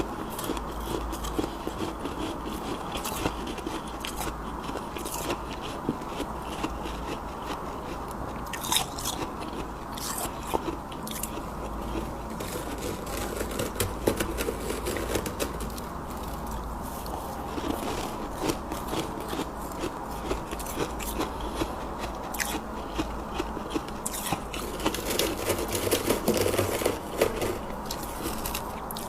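Close-miked chewing of soft, powdery freezer frost: a dense, continuous crunching and crackling, with louder bites about 25 seconds in.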